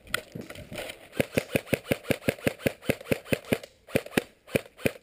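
Airsoft gun firing a fast string of shots, about seven a second for a couple of seconds, then a few slower single shots.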